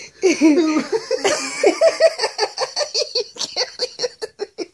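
Uncontrollable, hard laughter: a long run of rapid gasping laugh bursts, several a second, that grow shorter and fainter toward the end.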